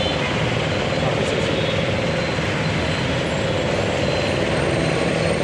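Steady roadside traffic noise from vehicles on the road.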